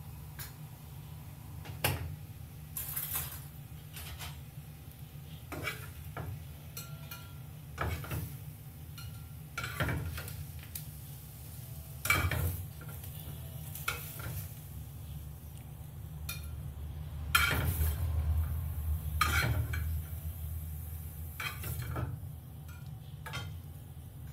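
Metal slotted spatula scraping and knocking against a nonstick frying pan as charred tomatoes, onion and garlic are lifted out, with scattered clinks of utensils and dishes. A sharp knock comes about twelve seconds in and a longer run of scraping and clatter a few seconds later.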